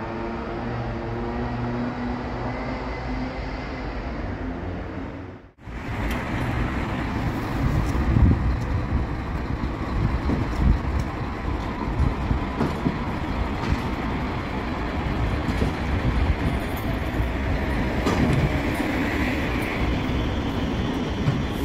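City street traffic noise with a steady low rumble, and a light-rail tram approaching on street tracks. The sound cuts out for a moment about five and a half seconds in.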